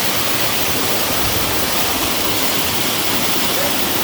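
Waterfall cascading, a loud steady rush of falling water.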